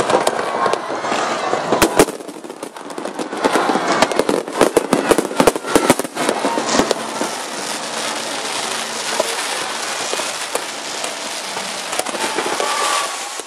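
Aerial fireworks exploding: a quick, dense run of sharp bangs and crackles between about two and seven seconds in, over a steady background din.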